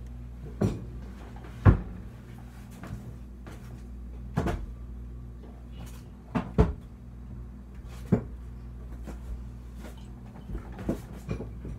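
Kitchen cupboard doors and their contents knocking and banging at irregular intervals while someone searches for a bottle of vanilla extract, the loudest bang about two seconds in. A steady low hum runs underneath.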